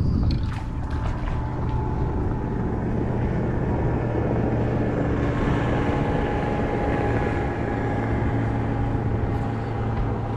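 A passing motorboat's engine running steadily, a low hum under a broad rush that builds to its fullest about halfway through.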